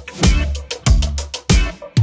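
Background music with a steady drum beat: a kick drum about every two-thirds of a second, hi-hat ticks between, and held bass notes.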